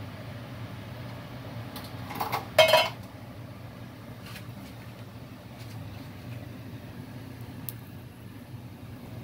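A short metal clatter of cookware, a nonstick pot or a utensil knocking, about two seconds in, over a steady low hum. A few faint ticks follow.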